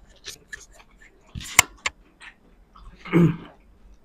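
Eating sounds from a fast mukbang of nasi Padang: scattered sharp clicks and smacks of mouth and food, the loudest about a second and a half in. A short throat noise follows about three seconds in.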